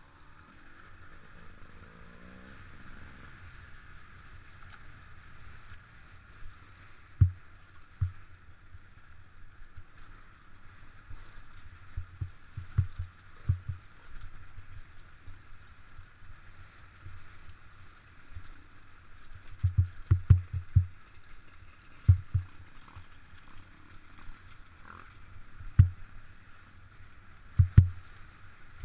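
Off-road motorcycle riding heard through a GoPro's housing: a steady muffled running noise with heavy low thumps, several in quick clusters, as the bike and camera jolt over rough ground.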